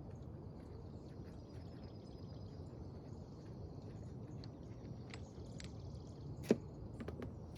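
Steady outdoor background noise with a few faint clicks, and one sharp knock about six and a half seconds in.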